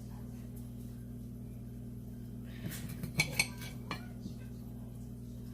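Kitchenware clinking and knocking in a short cluster about three seconds in, with a smaller clink a moment later, over a steady low hum.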